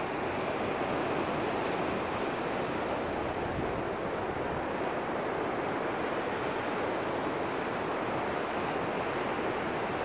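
Sea surf breaking on a sandy beach: a steady, even rush of waves.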